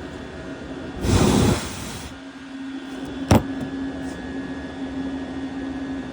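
Diesel heater running with a steady hum, with a loud rushing burst about a second in that lasts about a second, and a single sharp knock about three seconds in.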